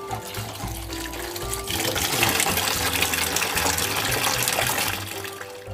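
Tap water running onto sliced chayote in a plastic colander and splashing into a basin of water as the vegetables are rinsed, growing much louder for the middle few seconds. Background music plays throughout.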